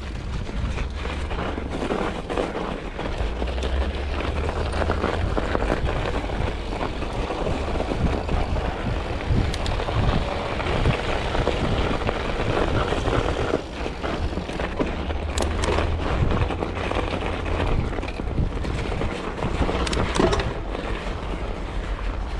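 Mountain bike being ridden along singletrack over thin snow and mud: a steady rough tyre-and-trail noise with scattered rattles and knocks from the bike, over a low wind rumble on the camera microphone.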